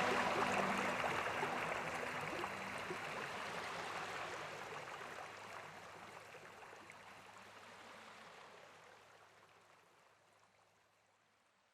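Rushing water of a cascading waterfall, an even hiss that fades out gradually to near silence. The last notes of soft background music die away about a second in.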